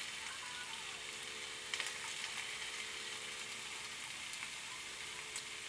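Shrimp, cod and broccoli sizzling in a hot nonstick skillet with a light coat of cooking spray: a steady frying hiss with a few faint crackles a little under two seconds in.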